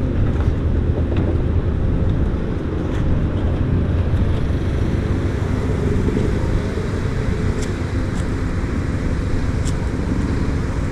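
Honeybees buzzing in a steady, dense hum around an opened hive, the sound of a busy, active colony, with a few light clicks.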